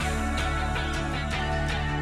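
Background music: a steady instrumental track with plucked-string notes over a held bass.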